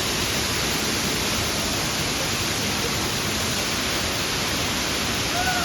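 Steady rush of falling water from a waterfall, an even loud hiss without a break.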